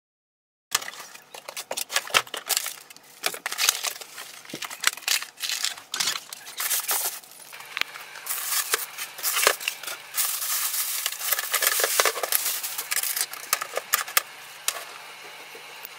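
Packing being taken off an inkjet printer by hand: plastic wrapping rustling and crinkling, with foam packing blocks and the printer's plastic body scraping, clicking and knocking irregularly as they are handled. It starts abruptly about a second in.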